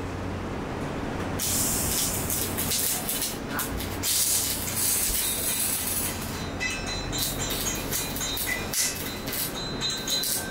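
Arc welding: the arc's crackling hiss comes and goes in stretches of a second or two, over a steady low hum.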